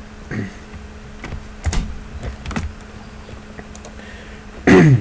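Computer keyboard being typed on in scattered, irregular keystrokes, over a faint steady hum. Near the end a short, louder sound falls in pitch.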